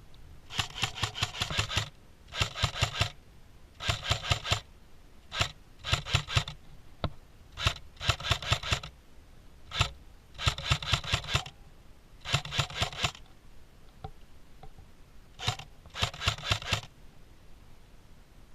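Airsoft electric gun (AEG) firing short full-auto bursts: about nine rapid bursts under a second each, with a few single shots between them.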